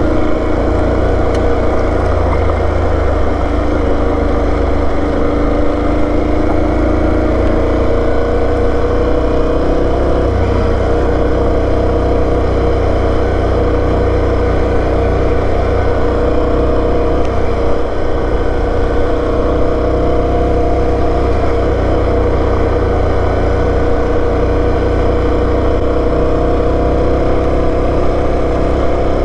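Aprilia Tuareg 660's parallel-twin engine running steadily while riding a dirt and gravel trail, its pitch rising a little over the first few seconds and then holding, over a heavy low rumble.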